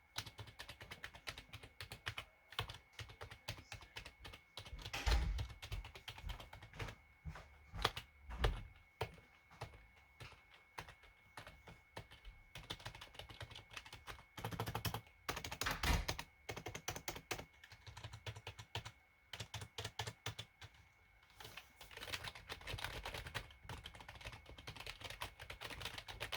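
Typing on a Corsair K55 RGB membrane keyboard's rubber-dome keys: a steady run of quick, soft key presses, with a few louder, heavier strikes about 5, 8 and 16 seconds in.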